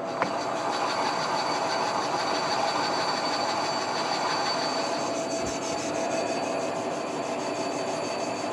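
Metal lathe running and cutting, its tool turning down a spinning truck-engine cylinder sleeve: a steady machine hum with a constant high whine, and one sharp click near the start.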